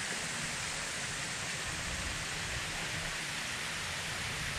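Steady hiss of water running in a patio fountain, with a low rumble underneath.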